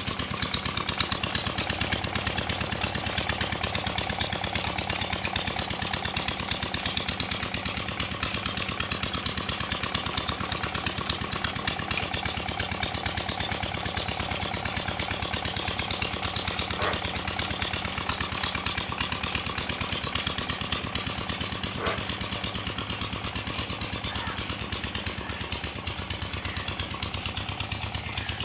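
An engine running steadily at an even, rapid beat, without change in speed.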